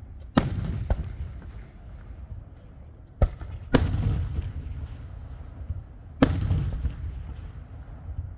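Fireworks going off: three loud bangs about two and a half seconds apart, each trailing a low rumbling echo, with two lighter cracks between them.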